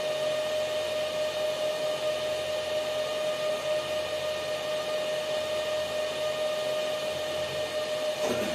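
Antminer L3+ Scrypt ASIC miner's factory cooling fans running at high speed during the startup fan test: a really loud, steady whine over rushing air. A short knock near the end.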